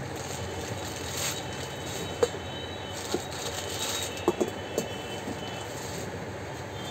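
Plastic lids being set onto stainless-steel mixer-grinder jars: a few light clicks and knocks from about two seconds in to about five seconds, over steady background noise.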